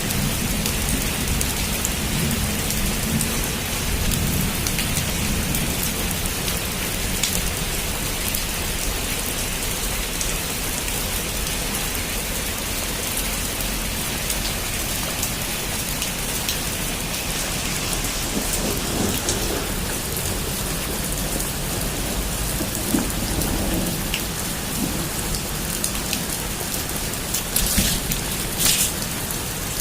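Heavy rain falling steadily on a rooftop, an even hiss with a few sharper, louder drop hits near the end.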